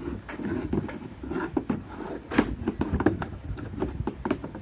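Irregular knocks, clicks and clatter of hands handling the water pump and its parts while it is being readied to plug in; the motor is not running.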